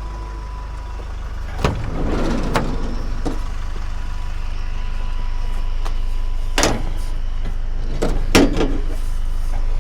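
Vehicle engine idling with a steady low hum, broken by several sharp knocks and clunks: two about two seconds in and three more in the second half, as scrap is shifted and loaded.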